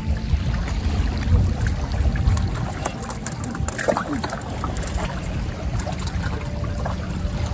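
Steady rush of wind and water at a rocky seashore, heaviest in the low rumble, with a few light clicks and knocks from handling the fishing tackle around the middle.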